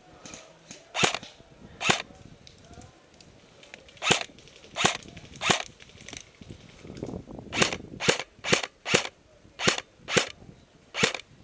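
G36 airsoft rifle firing single semi-automatic shots: about a dozen sharp cracks in loose groups, each a half second to two seconds apart.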